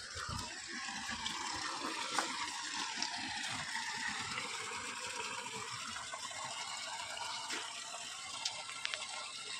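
Steady rush of water pouring from the 3-inch delivery pipe of a running 7.5 hp GK Energy solar DC pump, with a few faint clicks.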